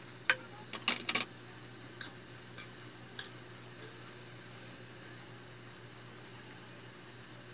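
Metal spoon clinking against an aluminium wok while stirring chicken pieces, a handful of sharp clinks in the first four seconds, with a quick cluster about a second in. An electric fan hums steadily underneath throughout.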